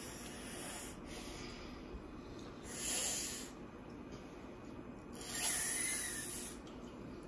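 A child's hissy breaths through the nose while she eats with her fingers: two clear puffs about three and five and a half seconds in, and a fainter one about a second in.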